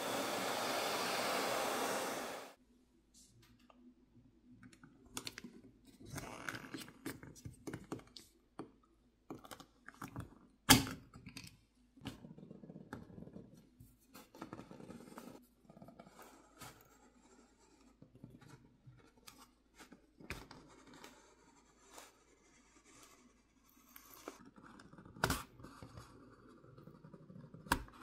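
A hot-air blower hisses steadily for about two seconds and then cuts off. After that a plastic pry pick scrapes and clicks along the edge of the iPhone 16e's glass back, slicing through the adhesive that holds the back cover on, with a few sharper clicks as the pick catches.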